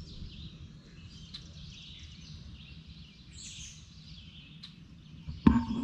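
Faint songbirds chirping over a steady low background noise of open-air ambience, with a short louder sound near the end.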